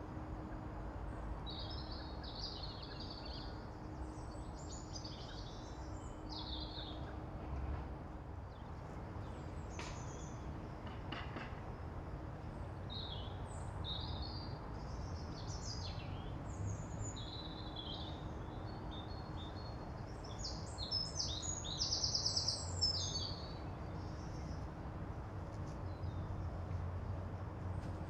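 Birds calling and chirping on and off, with short high notes scattered throughout and a loud rapid trill about three-quarters of the way in, over a steady low background rumble.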